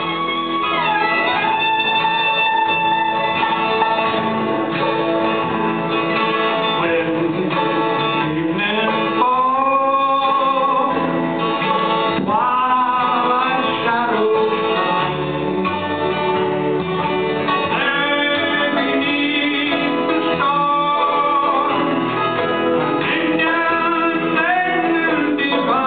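Live bluegrass band playing a song with acoustic guitar and other string instruments, a sliding melody line carrying the tune over the strumming.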